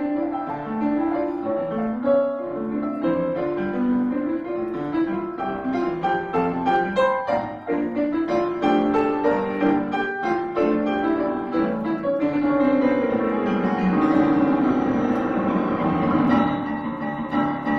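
Yamaha upright piano played solo: a fast passage with many quick notes. About twelve seconds in, a sweeping run falls into the lower register and settles into full, sustained chords.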